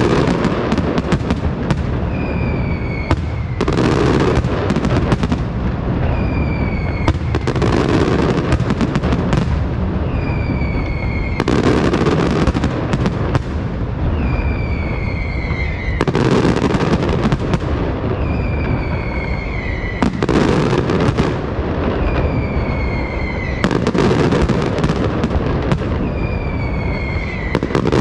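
Aerial fireworks display: shells launching and bursting in a continuous barrage of booms and crackle, swelling louder about every four seconds. A short whistle that falls in pitch recurs about every four seconds.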